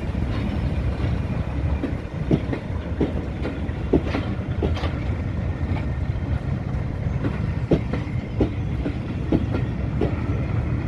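Train hauled by Class 37 diesel locomotive 37109 rolling out of the station. A steady low rumble runs throughout, and the wheels click over the rail joints about once a second.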